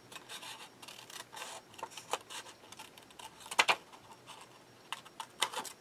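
Small craft scissors snipping through paper: a scatter of short snips and paper rustle, with a couple of louder snips a little past halfway.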